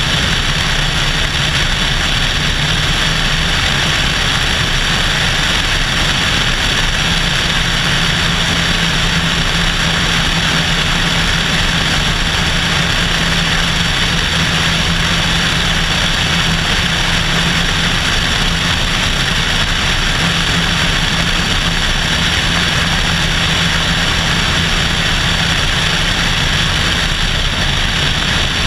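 Cessna 172SP's four-cylinder Lycoming engine and propeller droning steadily in flight, heard from a camera mounted outside under the fuselage, with a steady rush of airflow over it.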